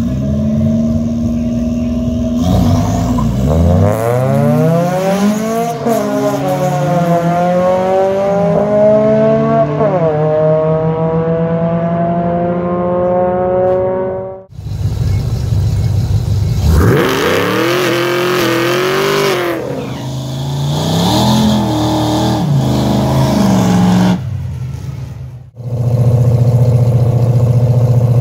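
Drag race car engines launching and accelerating hard, the engine note climbing in pitch and dropping back at each gear change, in two separate runs that each cut off sharply. A steady engine note follows near the end.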